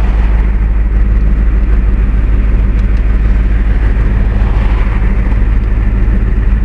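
Ford truck's engine idling with a steady low rumble, heard from inside the cab.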